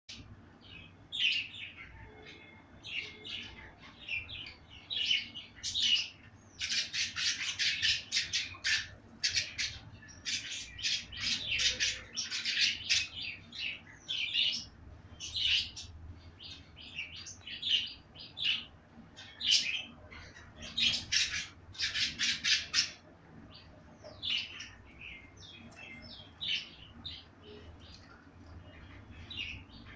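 Budgerigar chirping and chattering: short high notes throughout, with several denser runs of rapid chatter.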